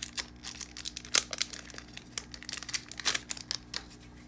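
Foil Pokémon booster pack wrapper being torn open and crinkled in the hands: a run of crackles with louder tears about a second in and again about three seconds in.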